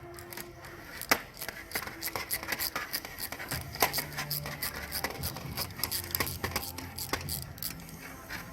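Hand tools working the metal shifter assembly: irregular clicks, knocks and scrapes of a wrench and ratchet on the 10 mm nut and bolt being taken out, with a sharp knock about a second in.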